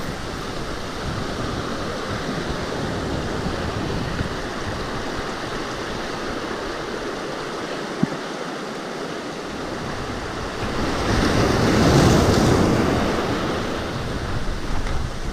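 Sea surf breaking and washing over shoreline boulders in a steady rushing wash. A bigger wave surges in about eleven seconds in and peaks about a second later. A single sharp click sounds about eight seconds in.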